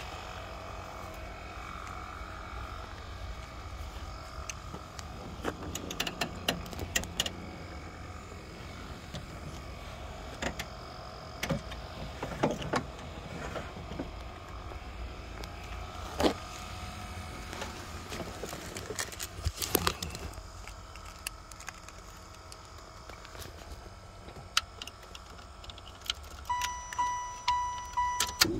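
Clicks and knocks as the driver's door of a 1996 Chevrolet Impala SS is opened and someone climbs in, with wind rumbling on the microphone. Near the end the car's warning chime starts pulsing, a steady repeated tone, as the key goes into the ignition.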